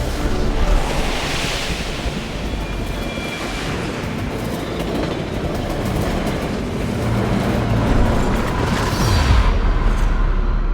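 Film soundtrack: a steam train rumbling and clattering past at speed, with music underneath.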